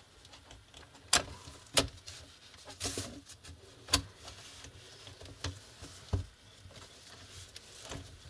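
Sharp plastic clicks and taps, about six in all at irregular intervals, as a laptop's LCD panel and plastic screen bezel are handled and pressed along the frame.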